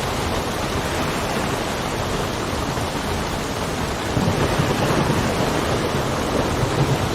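Steady rain with wind. About four seconds in, a low rumble of thunder comes in and rolls on for a few seconds.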